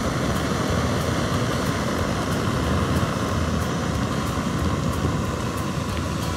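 Portable camping gas stove burner on a propane-butane cartridge running at full flame: a steady roar, with faint scattered crackles from the frying pan above it.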